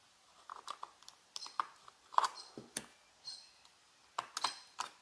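Casino chips clicking and clacking together as they are picked off a stack and set down as bets on a craps layout: an irregular run of sharp clicks.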